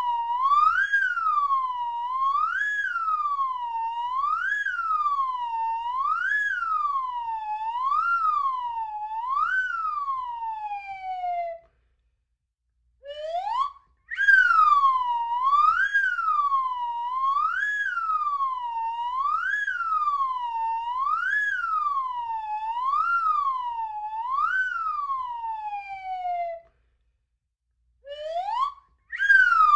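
Slide whistle played with its plunger pushed in and out, the pitch swooping up and down about once every two seconds in a siren-like wail. Each run ends in a falling glide and breaks off for a second or two, near the middle and again near the end, then starts again with a quick rising sweep.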